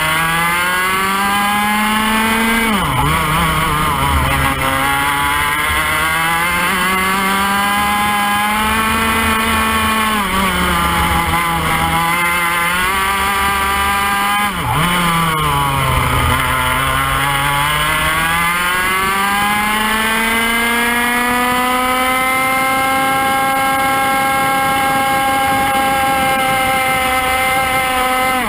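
IAME X30 125cc two-stroke kart engine heard onboard at racing speed: the revs climb down the straights and drop sharply under braking twice, then pull up and hold high near the end.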